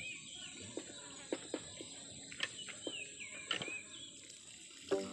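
Birds calling with repeated short whistled notes over a steady high insect drone, with scattered light taps and clicks as sliced bamboo shoots are handled and dropped into a metal pot. Music comes in near the end.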